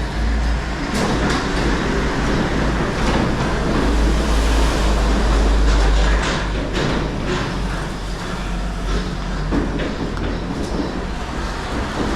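Sliding gate being heaved and shifted along its ground track, a steady rumble with scattered clanks and knocks.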